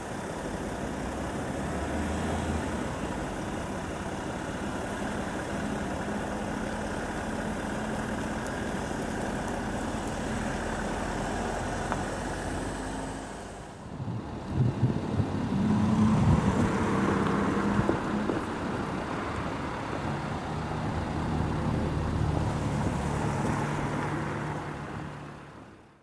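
Steady engine and road-traffic noise with a low hum. About halfway through it breaks off and gives way to a louder, more uneven stretch of engine noise, which fades out at the end.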